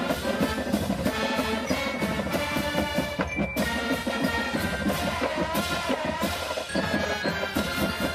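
Music: drums beating busily under steady pitched instruments.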